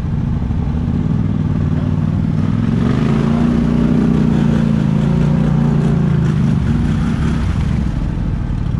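Polaris Sportsman 850 ATV engine running under throttle. It revs up about three seconds in, holds the higher revs for a few seconds, then eases back down about seven seconds in.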